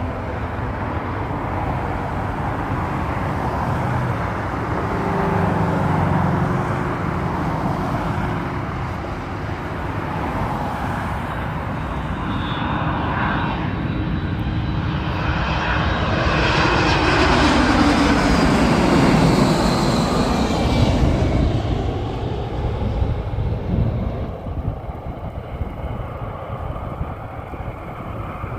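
UPS Airbus A300 freighter's twin turbofan jet engines on landing approach: a steady jet rumble that grows louder, peaks with a falling whine as the plane passes about two-thirds of the way in, then fades.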